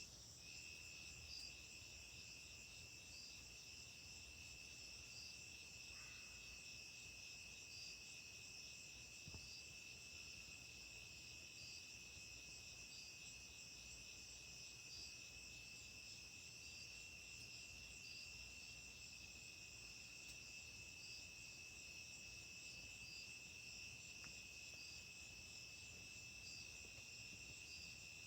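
Faint, steady chorus of insects such as crickets: a continuous high trilling at several pitches, with a soft chirp repeating about every second and a half.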